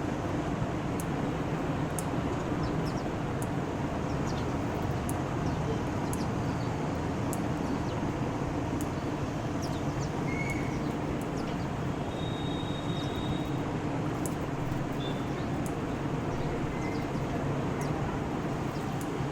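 Steady rumble of outdoor traffic noise, with a few faint, short bird chirps, about ten seconds in and again a few seconds later.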